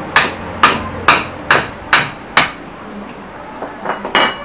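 Hammer blows on a steel punch held against a finned metal housing: six sharp strikes about two a second, then a pause and a few lighter knocks ending in one hard strike that rings briefly.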